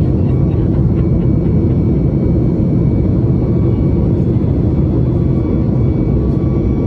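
Steady cabin noise of a Boeing 737 MAX in flight: engine and airflow rumble heard from inside the cabin, with a faint steady whine over it.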